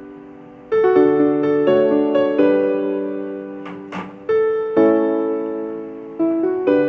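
Background piano music: notes and chords struck and left to fade, a new one every half second to a second. A short hiss about four seconds in.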